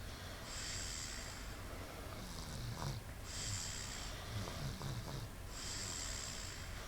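Snoring in a regular breathing rhythm: a long breathy hiss about every two and a half seconds, three times, with low, stuttering snores in between.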